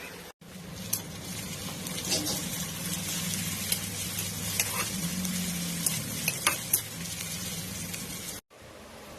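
Chicken sizzling in hot oil in a pan as it is stirred, with several sharp clicks of the spoon against the pan over a low steady hum.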